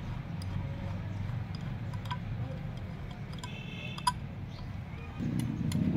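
Scattered small metallic clicks and ticks as a loosened nut is worked off by hand on a paddy weeder's steel blade assembly. A steady low rumble lies underneath and gets louder near the end.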